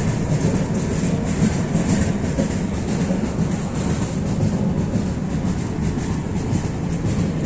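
Train running on the rails, a steady loud rumble heard from aboard the moving train.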